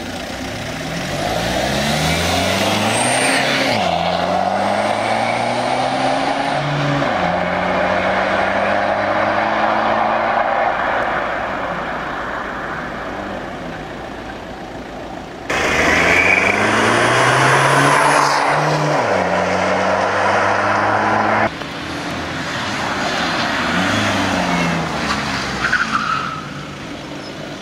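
Alfa Romeo 156 engine accelerating hard through the gears: its pitch climbs, then drops at each upshift, about three times. It comes in several separate runs joined by abrupt cuts.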